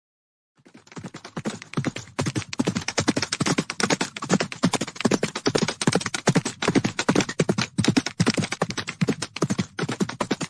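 A dense, rapid run of percussive hits, many per second, starting about half a second in after a brief silence.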